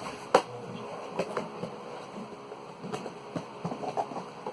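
A few light knocks and clicks of objects being handled, the sharpest about a third of a second in, over a faint steady hum.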